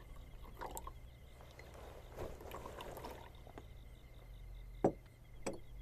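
Tea trickling from a teapot into a cup, faint. Two light clicks near the end.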